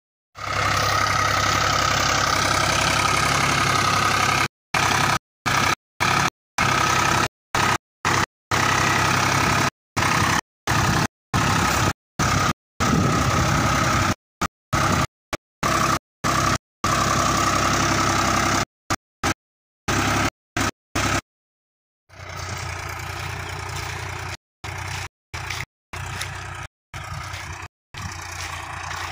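SAME 603 tractor's 60 hp diesel engine running while the tractor works a tine cultivator. The sound keeps cutting out for split seconds, and after a longer gap about two-thirds through it comes back quieter.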